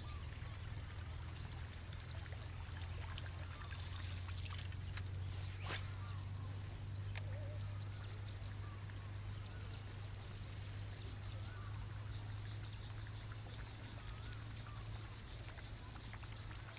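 Water trickling and lapping, with short rapid insect trills repeating every few seconds over a steady low hum.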